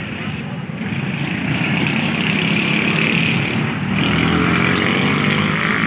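A motor vehicle's engine running, growing louder over the first two seconds and peaking about four seconds in.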